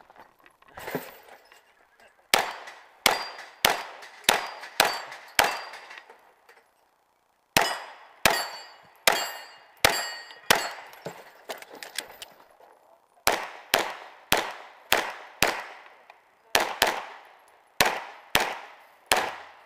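Rapid 9mm pistol fire from a Glock 17L: strings of quick shots with short pauses between them, including a silent gap of about two seconds after the first six shots. Steel targets clang and ring when hit in the middle of the run.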